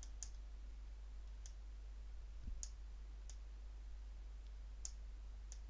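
Faint computer mouse button clicks, about seven at irregular intervals, as on-screen items are selected and dragged.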